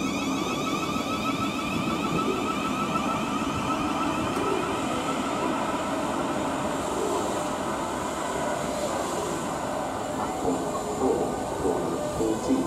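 Southeastern Networker electric multiple unit pulling away from the platform: an electric whine over a steady rolling rumble, the whine fading about halfway through as the train picks up speed.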